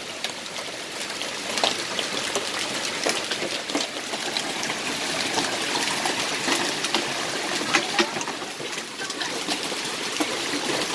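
Hailstorm with heavy rain: a steady rush of rain and running water, with many sharp clicks of large hailstones striking.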